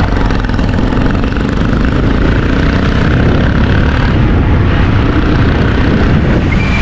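A car driving, with a steady, loud rumble of road and wind noise.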